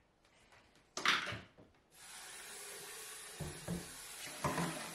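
Blended black-eyed beans poured from a blender jar into a stainless steel pot in a kitchen sink, with a short splash about a second in. Then a steady hiss of running water and a few soft knocks as a hand works the beans in the pot, washing off the skins loosened in the blender.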